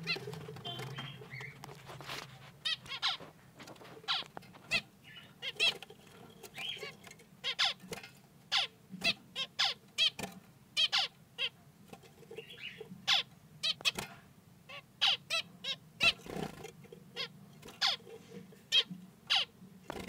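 Caged finches giving short, sharp calls, one after another, irregularly about once or twice a second.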